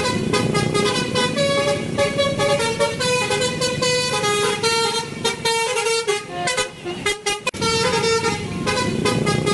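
Bus horn honking a string of notes that step up and down in pitch, over a steady noisy rumble, with brief breaks near the end.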